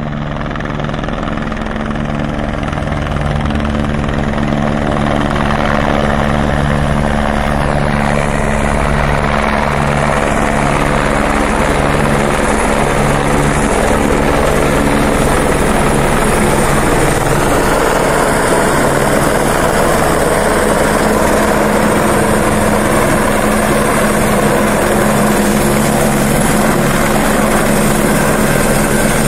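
Airbus H125 single-turboshaft helicopter flying close by, with its rotor and engine running loud and steady. It grows louder over the first few seconds as it comes nearer.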